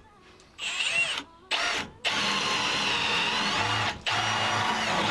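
Cordless drill boring into a clamped wooden block. It starts with two short bursts, then runs in two longer steady spells with a brief stop between them, its motor whine wavering slightly under load.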